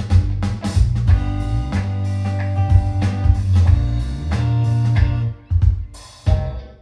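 Rock music with a drum kit, guitar and heavy sustained bass played loudly through hi-fi speakers and a 12-inch PA subwoofer. It thins out briefly about five seconds in and drops to a quieter guitar part at the very end.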